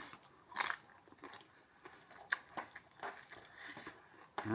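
Close-up mouth sounds of eating: scattered short clicks and smacks with a few brief chewing noises, one a little louder about half a second in.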